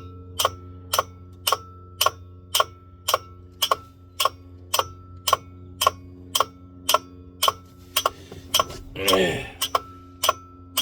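Steady, even clicking, about two clicks a second, over a constant low electrical hum inside the vehicle. About nine seconds in, a short throaty sound like a cough.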